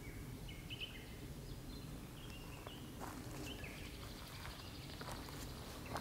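Nightingale singing: short whistled notes that jump between pitches, then a fast run of rapidly repeated higher notes in the second half, over a steady low background rumble.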